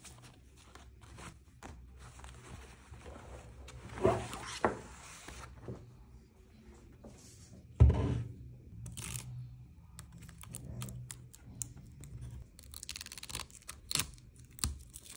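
A laptop being handled and unwrapped from canvas tote bags: cloth rustling and small knocks, with one loud thud about 8 seconds in. Near the end comes the short ripping of tape being peeled off the laptop's lid.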